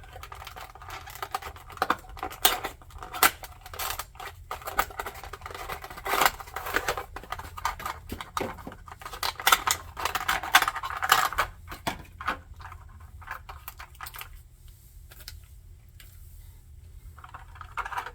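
Cardboard model box being opened and unpacked by hand: a dense run of scrapes, taps and rustles of cardboard and packing for about twelve seconds, then quieter handling with a few light clicks.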